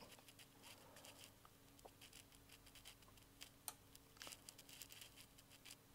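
Near silence: a faint steady electrical hum, with a few soft ticks as the power supply's knob is turned.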